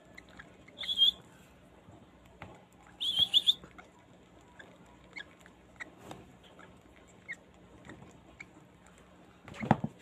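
Baby parrot chicks giving high, squeaky begging chirps while being hand-fed with a syringe: one burst about a second in, three quick chirps at about three seconds, and fainter single chirps in between. A short rustle of handling on the towel comes near the end.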